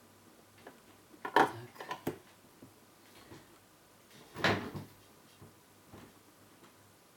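Handling noise on a repair workbench: a cluster of knocks and clatters of small hard objects being picked up and set down, then a second, louder clatter a few seconds later, with a few light ticks between.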